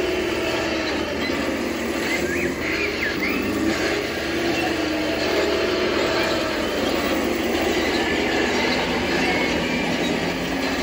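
Scale RC Tiger I tank driving, its Elmod Fusion Pro sound unit playing a simulated Tiger engine running through a small onboard speaker, the pitch wavering as the throttle changes. A few brief high squeaks come about two seconds in.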